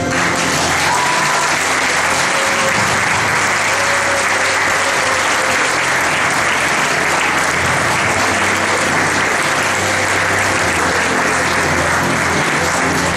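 Audience clapping in a sustained round of applause, with background music playing underneath.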